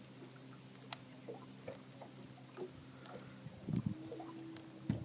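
Light ticks and small splashes of water against a boat hull over a steady low hum, with two dull thumps on the boat about four and five seconds in.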